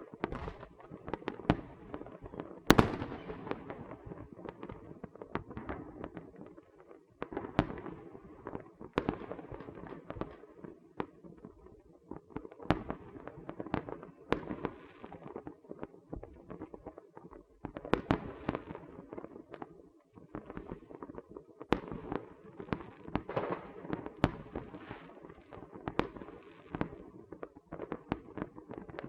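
Firecrackers and small fireworks going off in an irregular string of sharp pops and cracks over a continuous crackle, with the loudest bang about three seconds in.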